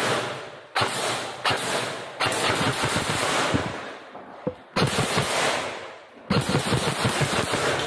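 Airsoft guns firing on full auto, a run of about six bursts that each start sharply and fade away.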